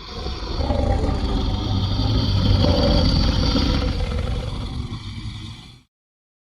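Rhedosaurus monster sound effect: a low, rumbling growl that fades in, holds for about five seconds and fades out.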